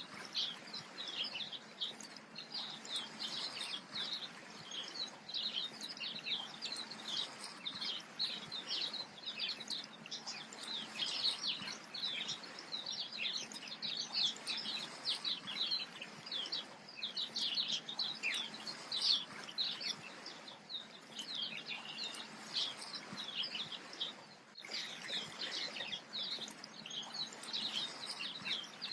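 A dense chorus of many small birds chirping rapidly and without pause, over a faint steady hiss. It dips briefly near the end and then carries on.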